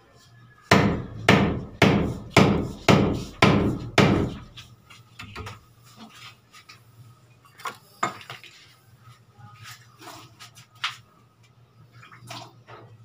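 Hammer blows during masonry work on a window opening: seven loud, sharp strikes about twice a second, then a few lighter, scattered knocks.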